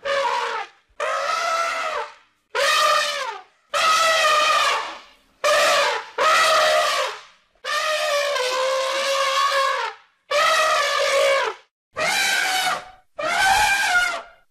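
Elephant trumpeting: about ten loud, brassy calls in a row, each a second or two long, with short silences between them.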